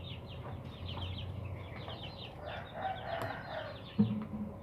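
Birds chirping in quick, short, falling notes, with a longer call about three seconds in and a sharp knock near the end.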